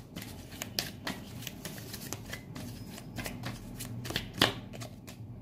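A tarot deck being shuffled by hand: a steady run of quick, soft card flicks and slaps, with one louder slap near the end.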